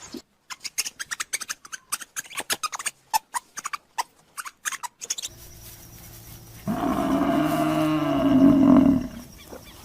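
A large wild animal gives one loud, drawn-out roar of about two seconds, starting a little past halfway through. It comes after a run of sharp clicks.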